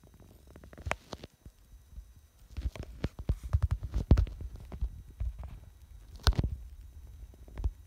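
Handling and movement noise: a run of soft low thumps, thickest in the middle, with a few sharper clicks and a low rumble under them.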